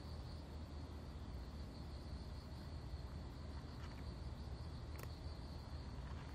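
Crickets trilling in a steady, high, even tone over a low steady hum, with a couple of faint clicks near the end.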